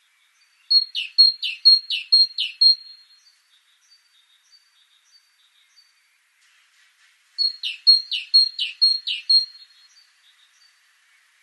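Great tit singing: two runs of its repeated two-note song, each about five quick phrases of a high thin note dropping sharply to a lower one, the second run about six seconds after the first.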